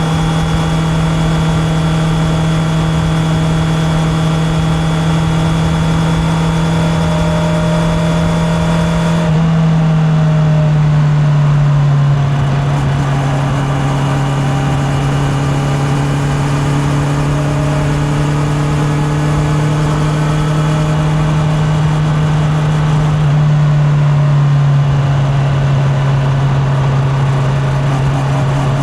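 Honda CB650R's inline-four engine running at steady cruising revs, with wind and road noise. Its note drops a little in pitch twice, about nine seconds in and again near the end.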